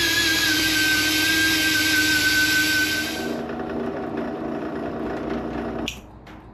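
A high-speed power tool running with a steady high-pitched whine that cuts off about three seconds in. A quieter, lower hum follows until a sharp click near the end.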